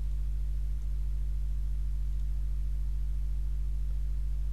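Steady low electrical hum with a buzzy string of overtones, picked up through the microphone and recording chain, unchanging throughout.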